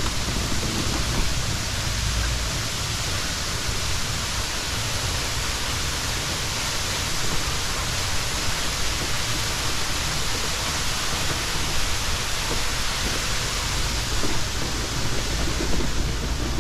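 Steady rush of man-made waterfalls spilling over artificial rockwork, an even hiss without breaks.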